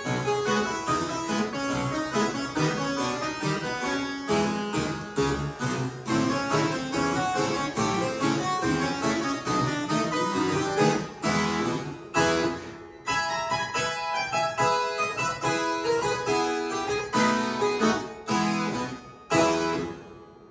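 Harpsichord playing a ragtime piece: quick runs of plucked notes over chords. A last chord is struck about a second before the end and dies away.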